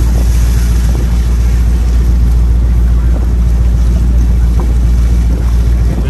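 Passenger ferry's engine running steadily under way, a deep constant drone, with wind buffeting the microphone and the hiss of water along the hull.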